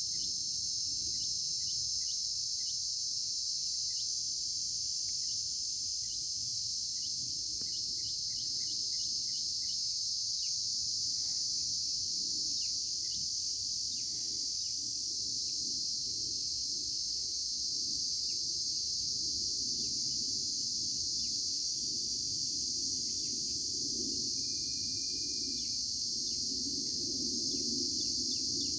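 Steady, high-pitched chorus of crickets or similar insects trilling continuously, with a few short bird chirps.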